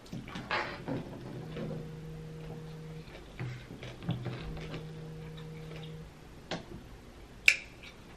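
Close-miked chewing of crisp pickle: wet crunches and small clicks, with one sharp click near the end. Two low steady hums, each about a second and a half, sound in the middle.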